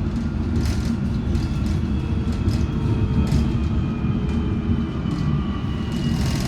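Metropolitan line S8 stock train running between stations, heard from inside the carriage: a steady rumble of wheels on rail with occasional clicks, overlaid by the high whine of the traction motors, several thin tones that slide slowly in pitch.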